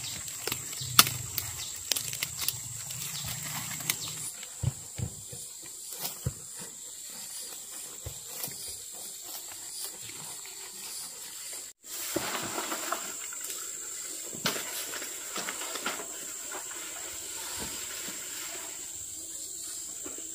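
Rustling with scattered snaps and knocks, as of movement and handling in brush, over a steady high whine. The sound drops out for an instant a little past halfway.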